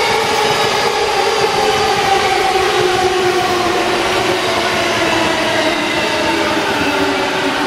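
JR East E233-1000 series electric train slowing as it pulls into the station, its motors whining in several tones that fall slowly in pitch as it brakes, over the steady rumble of the running train.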